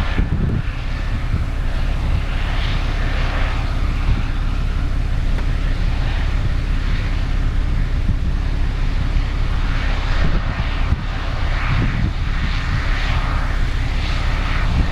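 Case IH 2388 combine running steadily while harvesting corn: a deep, continuous diesel rumble with a rushing noise over it that swells and fades every second or two.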